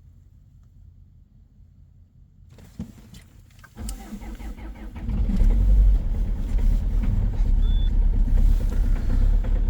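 A 2.0 HDi four-cylinder common-rail diesel cold-started at -19°C: the starter cranks it for about a second, starting about four seconds in, then the engine catches and runs loud with a very strong cold-start diesel knock.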